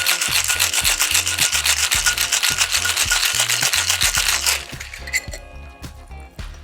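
Ice rattling in a metal cocktail shaker tin being shaken hard, a fast, even rhythm of strokes that stops about four and a half seconds in. Background music with a bass line plays underneath.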